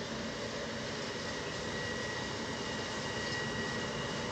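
Approaching E494 electric locomotive hauling a freight train of tank wagons: a steady rumble and hiss with a thin high whine, slowly growing louder.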